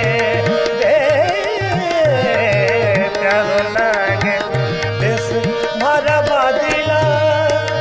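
Rajasthani Maand folk music: tabla playing a steady rhythm with gliding bass strokes on the bayan, and a harmonium holding sustained notes. A male singer adds wordless, ornamented vocal runs through the first half, then the instruments carry on alone.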